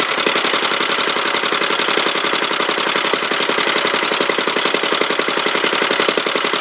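Petter A1 single-cylinder, air-cooled petrol stationary engine running steadily at speed, with a fast, even beat of exhaust pulses.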